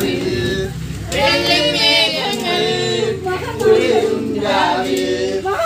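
Voices singing, with long held notes that waver in pitch.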